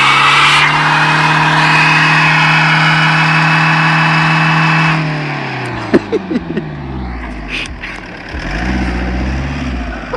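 Alfa Romeo 156 doing a burnout: the engine is held at steady high revs while the tyres spin with a harsh hiss. About five seconds in the revs fall away and the engine runs lower, with one short rise and fall in revs near the end.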